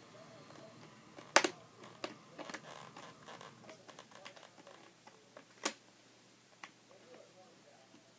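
Screwdriver clicking and scraping against a facemask screw and the plastic side clip of a Riddell Revo Speed football helmet while the screw is driven in. Scattered small clicks, the loudest about a second and a half in and another near six seconds.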